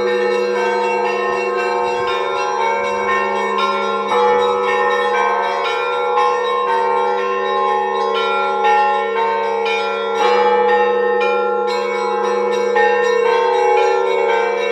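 Orthodox monastery bells rung together in a traditional zvon. Frequent strikes on the smaller, higher bells ring out over the steady hum of the deeper bells.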